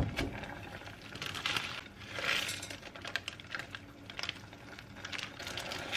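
Plastic food packaging crinkling and rustling as it is handled and opened, with light clicks and taps.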